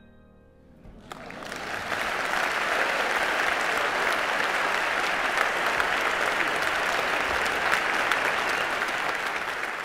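Audience applauding, starting about a second in and swelling quickly to a steady level that holds until it begins to fade near the end.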